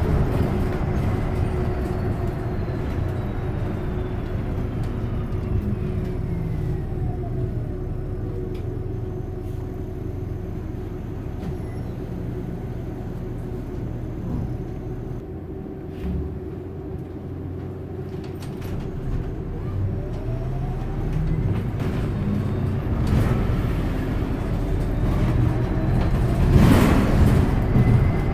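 San Francisco Muni city bus heard from inside while riding: steady drivetrain hum and road rumble. A whine falls in pitch early on as the bus slows and rises again later as it picks up speed. A louder rushing noise comes near the end.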